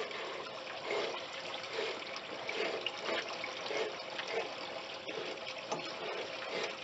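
Stance GR coilover body being turned by hand on its threads to raise the ride height: a soft rasping scrape that repeats about every half second, over a faint steady hiss.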